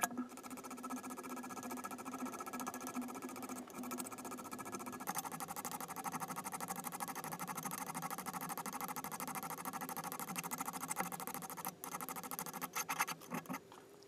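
Hand file rasping across a padlock and steel rod clamped in a bench vise, in quick even strokes that turn irregular near the end, after a sharp metal knock at the very start.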